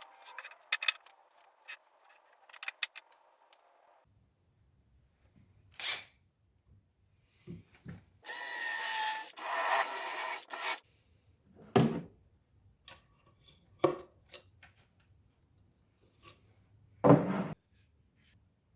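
Workshop sounds of parts and tools being handled: scattered clicks and knocks, then a rasping tool noise that lasts about two and a half seconds from about eight seconds in, followed by a few separate knocks, the loudest near the end.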